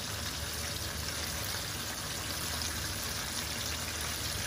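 Breaded chicken pieces deep-frying in hot oil in a pan: a steady sizzle with fine crackling.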